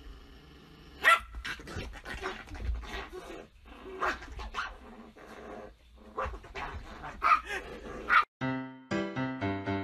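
Small poodle barking in play, with sharp barks about a second in and again twice near the end. Piano music starts just before the end.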